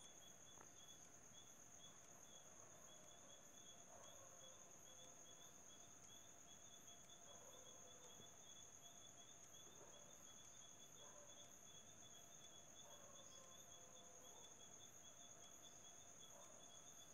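Faint night insect chorus: crickets trilling steadily, with a finely pulsing chirp beneath the steady high trill.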